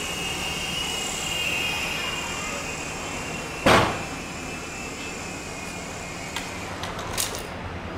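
Small electric motors and propellers of a homemade mini RC flying box whining steadily. A single sharp knock comes about halfway through, and a few lighter clicks come near the end.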